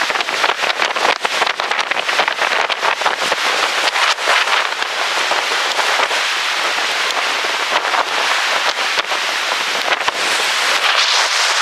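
Rain and strong storm wind hitting the microphone: a dense rush of noise peppered with sharp clicks of raindrops striking the camera, growing stronger near the end.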